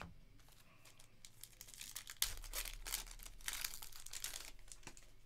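Foil wrapper of a 2020-21 Panini Flux basketball card pack being torn open and crinkled by hand. It comes as a dense run of crinkling from about two seconds in until shortly before the end, after a few faint ticks.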